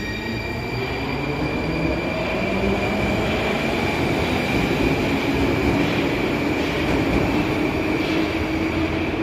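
Moscow metro Ezh3 train at a station, heard from inside the car: a steady mechanical hum with a low whine that slowly rises in pitch and grows louder, levelling off near the end, over a thin steady high tone.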